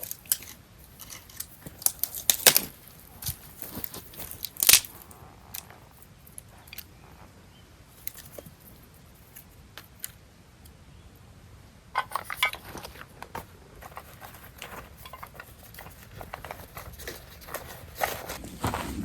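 Scattered sharp clicks, taps and rustles of small objects being handled, with the loudest knocks a few seconds in and a busier run of clicks about two-thirds of the way through.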